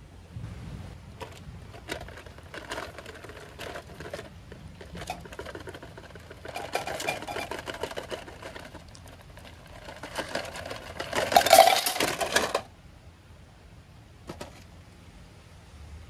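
Irregular clicking and rustling of objects being handled, with a louder burst of rustling about eleven seconds in that cuts off suddenly about a second and a half later.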